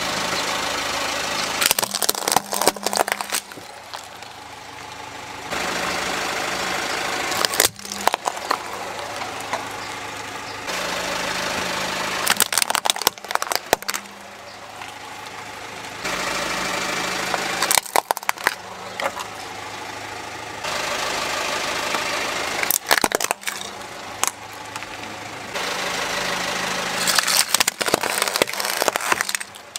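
Hard plastic toys cracking and snapping under a slowly rolling car tyre, in about six bursts of sharp cracks. Between the bursts the car's engine idles steadily.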